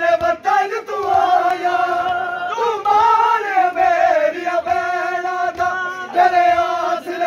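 A crowd of men chanting a Muharram mourning noha in unison, in long held phrases. Dull low thumps of hands beating on bare chests (matam) keep a rhythm underneath.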